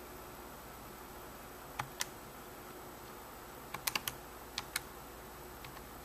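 Buttons on a TI-84 Plus C Silver Edition graphing calculator being pressed: about eight short plastic clicks in three small groups, the last of them a quick run of four. The calculator does not come on, as its battery needs charging.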